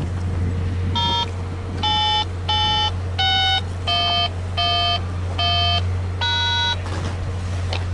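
A short electronic tune of eight beeping notes, each about half a second long, stepping down in pitch and rising again on the last note. A steady low hum runs underneath.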